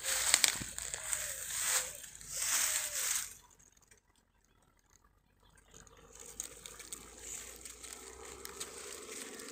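Water splashing and sloshing in several bursts as a cast net holding a large carp is hauled in at the edge of a river pool. After about three seconds the splashing stops and only a faint, steady background remains.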